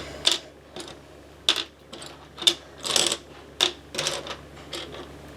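Plastic Lego bricks clicking and clattering against each other as they are sorted through by hand, a dozen or so irregular sharp clicks.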